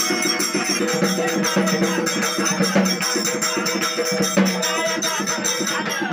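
Live folk devotional music: small brass hand cymbals struck in a quick, steady beat together with a small hand drum, under singing.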